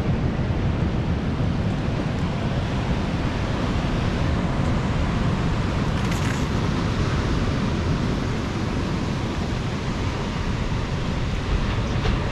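Steady wind noise on the microphone over surf washing on the beach.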